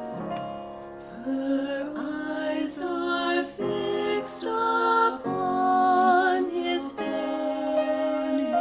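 Voices singing a slow, lullaby-like sacred Christmas song over piano accompaniment. The sung phrases have some vibrato.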